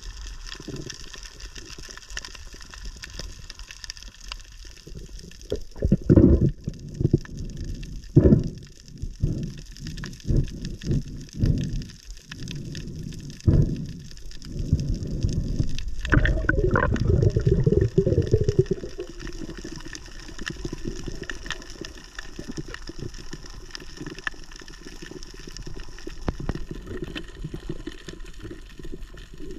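Water gushing and bubbling around a camera held underwater, a low steady wash with a run of louder gushes in the middle.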